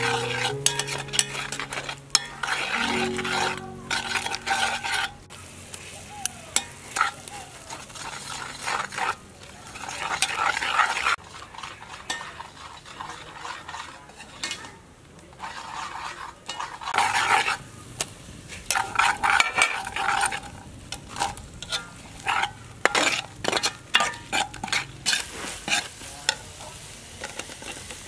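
A metal ladle scrapes and knocks against a metal cooking pot in uneven strokes, stirring red pepper paste that sizzles as it fries.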